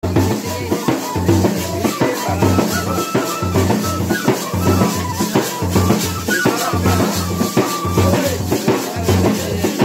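Folk dance music: a drum keeps a steady beat while a flute or pipe plays a wavering melody over it.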